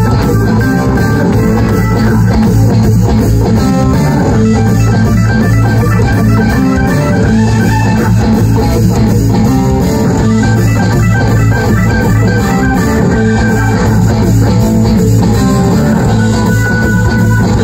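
Live rock band playing: electric guitars, keyboard organ and drums at a steady beat through a PA system.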